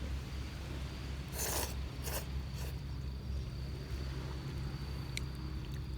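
Night campfire ambience by the sea: a steady high insect trill over a low rumble of surf, with a single sharp crackle from the fire near the end. About a second and a half in come three short rushing, rasping noises.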